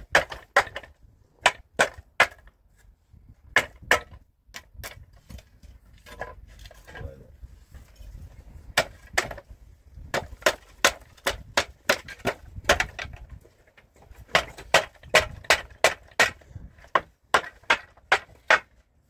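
Sharp blows of a tool striking wood, coming in quick runs of several strikes about three a second, with a quieter stretch of about two seconds a third of the way in.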